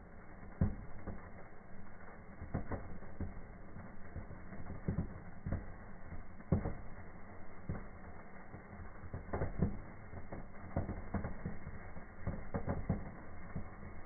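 Indoor fireplace fireworks burning: a flame fountain and sparklers give irregular sharp crackles and pops, several a second, over a low rumble.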